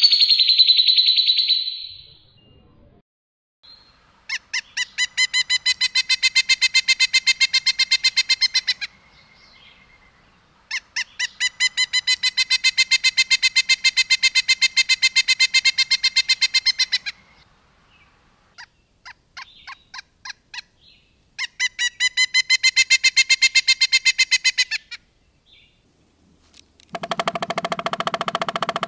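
Recorded songbird song used for tutoring caged birds: long trills of rapid, evenly repeated pitched notes in three runs of several seconds each, with a short call at the start. A harsher, rougher call comes near the end.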